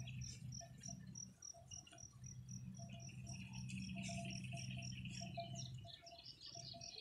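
Insects chirping in the grass in quick, even pulses, about four a second, with a lower pulsed call beneath them. A faint low hum runs underneath, dropping out briefly about a second in and fading near the end.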